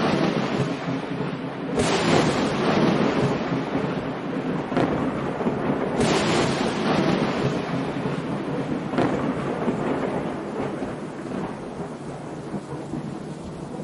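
Thunderstorm sound: steady rain with rolls of thunder, one about two seconds in and another about six seconds in, each dying away slowly, the whole fading gradually toward the end.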